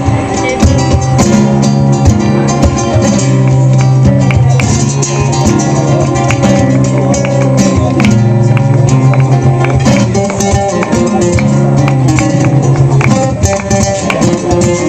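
Two acoustic flamenco guitars playing a bulería live, with many sharp, rapid strums over sustained notes.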